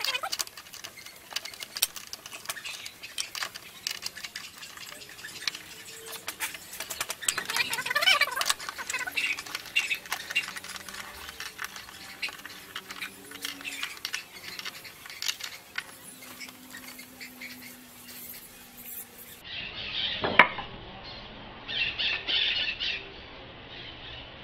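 Handling noise: irregular light clicks, taps and rattles of tools and parts being worked on a plywood jig, with no motor running. A few louder knocks come near the end.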